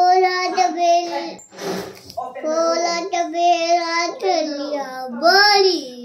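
A young child singing in long, drawn-out notes, with a short noisy burst about two seconds in.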